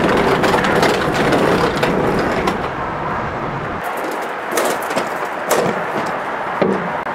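Rumbling of a wooden crate on caster wheels being rolled over a box truck's floor. It stops abruptly about four seconds in and gives way to a few separate knocks and footsteps as cardboard boxes are handled.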